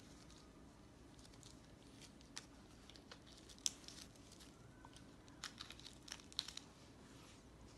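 Near silence broken by faint, scattered clicks and rustles, with a cluster of them in the second half, from gloved hands swabbing an arm and handling injection supplies.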